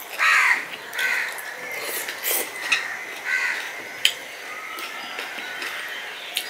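A crow cawing about four times in the first few seconds, the first call the loudest. A couple of sharp clicks from fingers working food on a steel plate come after.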